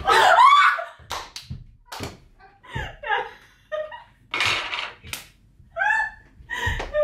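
Two women shrieking in excitement, then laughing hard in bursts, with a few short sharp slaps among the laughter.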